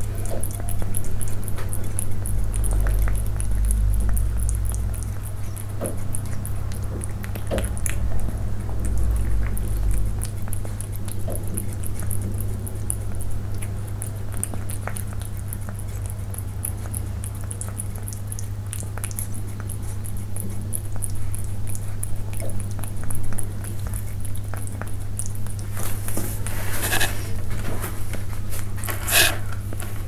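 Persian cats eating up close: chewing and mouth noises as many small clicks, over a steady low hum, with two louder sharp sounds near the end.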